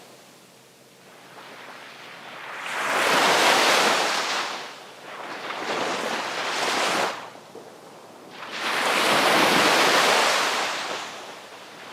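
Sea waves breaking and washing up the shore, coming in three surges a few seconds apart, each swelling to a hiss and falling away; the biggest breaks about nine seconds in.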